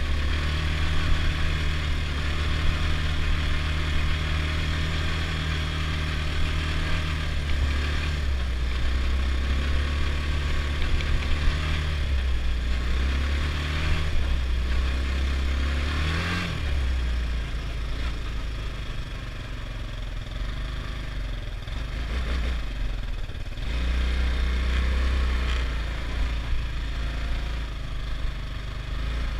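Adly Hurricane 320 quad's engine running under way, holding a steady note with the throttle eased off and opened again a few times.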